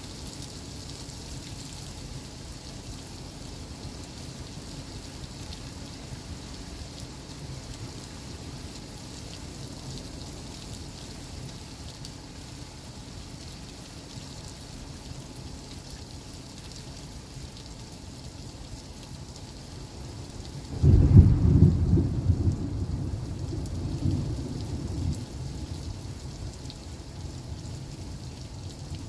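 Heavy rain falling steadily in a thunderstorm. About two-thirds of the way through, a sudden loud clap of thunder breaks in and rumbles away over a few seconds.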